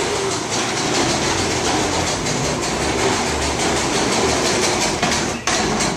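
Lawn mower running steadily, a continuous mechanical rattle that briefly drops out about five and a half seconds in.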